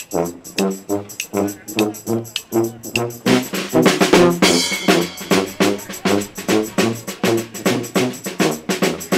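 Brass band playing: a sousaphone bass line pulses under the horns, with drums. The band grows fuller and louder about three seconds in.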